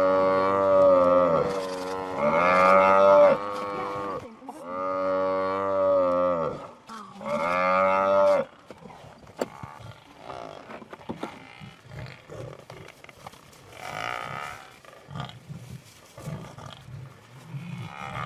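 African buffalo bellowing: four long, drawn-out moaning calls in the first eight seconds or so, each rising and falling in pitch. After that come quieter irregular scuffling noises.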